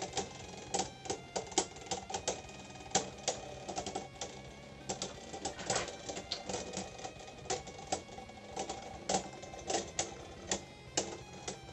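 Two spinning Beyblade tops, one of them Wizard Fafnir, clashing in a plastic stadium: irregular sharp plastic clacks, sometimes several close together, as they knock into each other again and again. Faint background music plays underneath.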